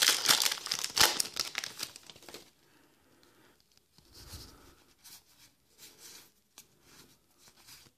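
Magic: The Gathering booster pack wrapper being torn open and crinkled for about two and a half seconds, then faint soft sliding and flicking as the cards are taken out and leafed through.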